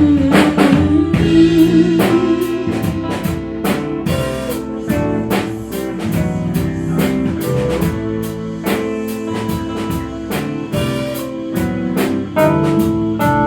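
Instrumental break of a band playing a pop-rock song: drum kit keeping a steady beat under guitar, with no singing.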